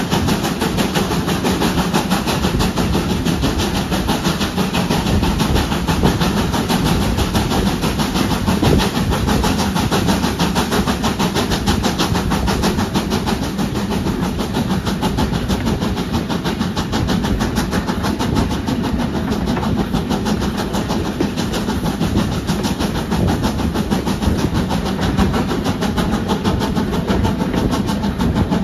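Moving train heard from an open carriage window: steady running noise of the coach's wheels on the rails, with wind blowing across the microphone.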